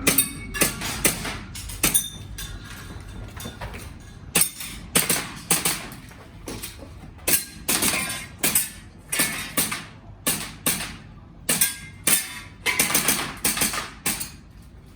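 Airsoft gas blowback pistol firing: sharp shots in quick pairs and short strings, with brief pauses between the groups.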